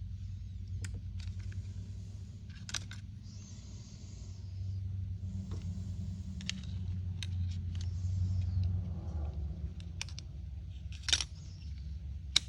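Scattered light clicks and rattles of small plastic and metal parts from a chainsaw's top handle (trigger, spring, hinge pin) being handled and fitted by hand, with soft rustling between them, over a steady low hum.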